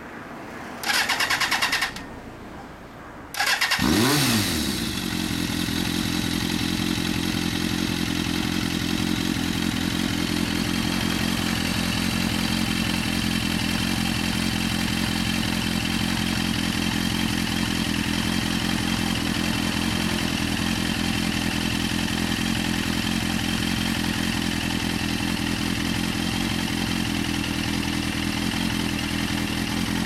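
Suzuki GSX400S Katana inline-four with a WR'S aftermarket silencer being started: a short burst of cranking, then the engine catches with a quick blip a few seconds in and settles into a steady idle.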